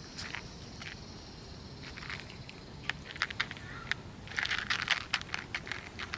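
Irregular sharp clicks and crackles, coming thick and fast for about a second near the middle.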